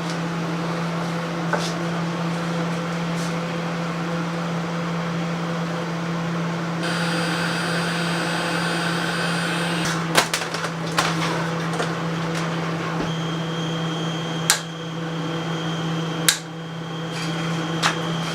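A steady electrical hum with a few sharp clicks and taps. A brief higher whine sounds partway through.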